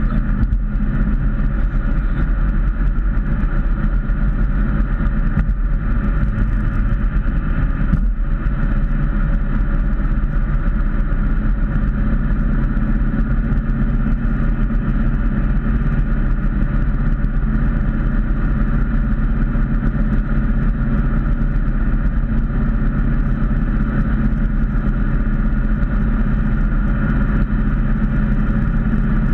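Ford Mustang cruising at steady highway speed, heard from inside the cabin: a constant engine drone mixed with tyre and road noise.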